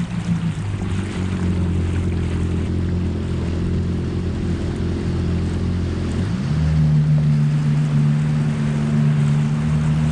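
A Yamaha WaveRunner's four-stroke engine runs steadily at low speed, with water rushing and splashing past the hull. About six seconds in, the engine note shifts to a different steady pitch.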